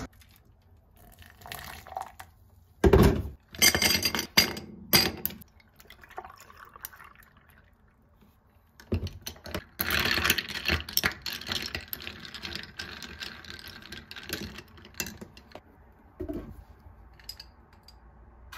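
A few loud sharp knocks, then liquid poured over ice cubes in a glass for several seconds, with the ice clinking.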